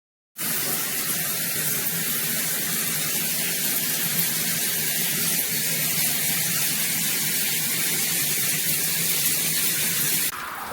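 Water spraying steadily from a filtered shower head, a constant hiss that starts abruptly. About ten seconds in it drops and thins, then cuts off.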